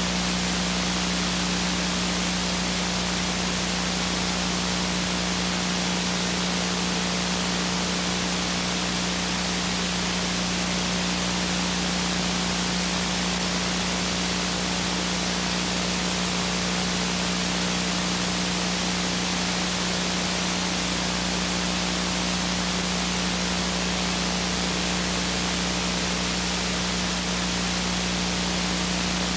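Steady hiss with a low, constant hum underneath: the noise of a blank recording with no program sound.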